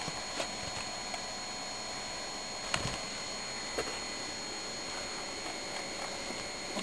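Steady background hiss from the recording, with a few soft clicks and knocks, the clearest near the middle, from the cats scuffling on a leather sofa.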